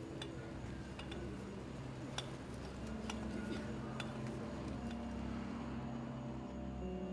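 Slow ambient film-score music of held low notes that shift in pitch every second or two, with a few scattered light clicks and clinks.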